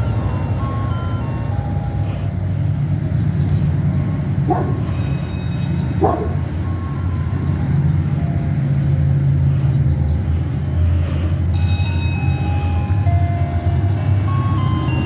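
Ice cream truck's music box playing its jingle, a tune of short steady notes, over a steady low engine rumble. Two brief sharp sounds cut in about four and a half and six seconds in.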